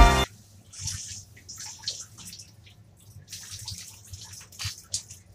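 Wet, soapy dog's coat being scrubbed by hand: irregular soft splashing and squishing of water and lather, with scattered drips.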